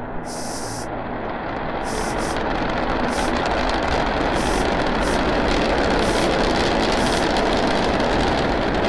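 Rocket engine thrust from a lander's landing thrusters during descent and touchdown: a steady rushing noise with a low rumble that builds over the first few seconds, then holds.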